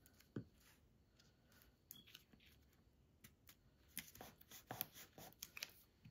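Faint handling of cardstock on a tabletop: a single sharp tap about half a second in, as a small plastic glue bottle is set down, then light paper rustles and clicks in the last couple of seconds as the glued tab is pressed and the card is lifted and turned.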